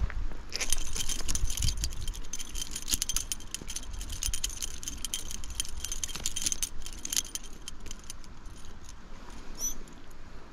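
Spinning reel and tackle clicking and rattling in quick, irregular runs as a hooked brown trout is reeled in, with a short high squeak near the end.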